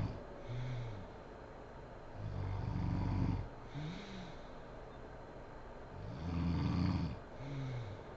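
A woman snoring in her sleep: two long, rough snores about four seconds apart, each followed by a short pitched sound on the breath out.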